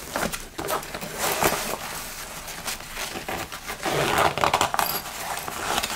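Rustling and scraping of a Mountainsmith Hot Box Hauler's nylon fabric and mesh pocket as a small propane cylinder is pushed into the pocket and the pocket is handled. The sound is an irregular run of rustles and scuffs with no steady tone.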